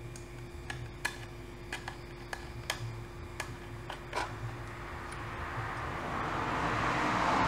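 Small, irregular metal clicks and taps of screws and a screwdriver as a 2.5-inch SSD is screwed into a laptop's drive bracket. Near the end a rustling noise swells up and grows louder.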